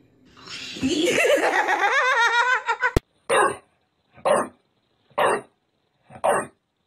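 A person laughs with a wobbling, rising voice. After an abrupt cut, a bulldog gives five short barks, about one a second, at a framed picture of a bulldog.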